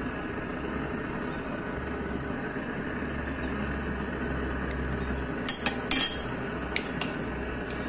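A metal spoon clinking against a pot and dishes, a few sharp clinks between about five and a half and seven seconds in, the loudest near six seconds, over a steady low hum.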